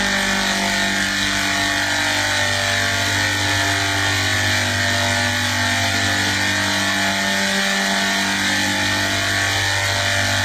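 A steady machine drone: a constant hum made of several unchanging tones over an even hiss, with no change in level.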